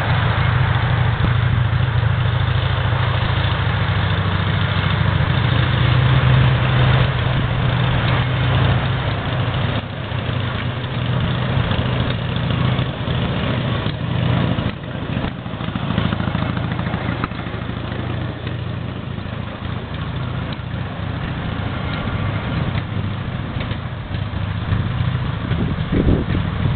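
Wickham Type 17 railway trolley's engine running steadily, a little quieter after about ten seconds.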